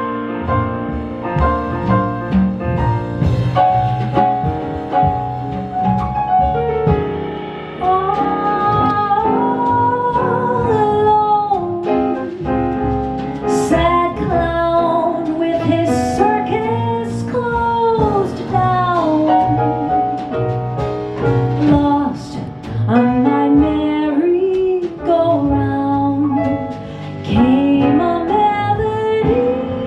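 Slow jazz ballad: piano playing alone at first, then a female voice enters about eight seconds in, singing long, gliding held notes over the piano accompaniment.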